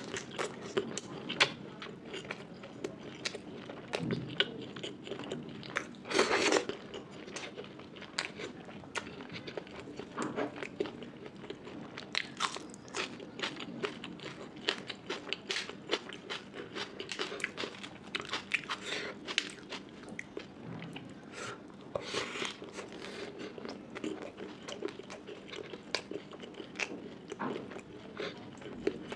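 Close-miked eating: crunchy bites and wet chewing of Indian food, a dense run of quick crisp clicks with a louder crunch about six seconds in.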